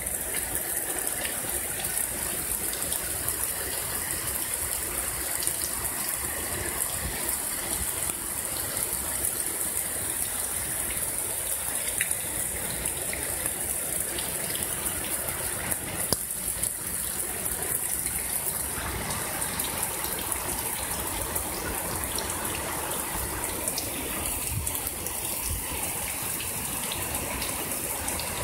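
Heavy rain pouring down in a thunderstorm: a steady hiss of rain with water running off, and a few sharp drip taps now and then.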